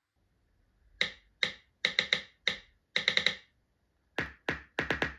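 iPhone keyboard click sounds (iOS 17 on an iPhone 12 mini) as keys are tapped: about ten quick clicks in uneven runs, then after a short pause a faster run of about six clicks near the end with a fuller, deeper sound.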